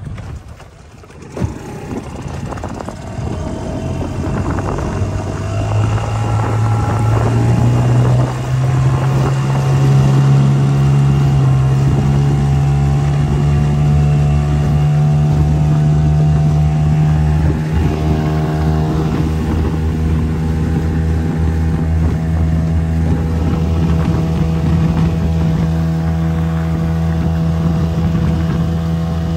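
A motorboat engine speeding up over the first several seconds, its pitch climbing, then running steadily at high speed.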